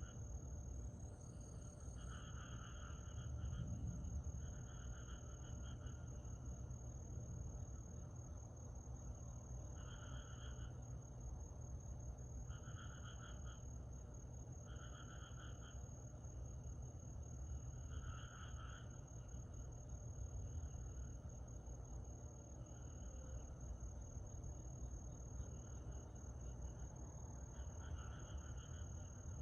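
Night-time chorus of summer insects: an unbroken high-pitched trill, with a lower chirping call repeating every two to three seconds.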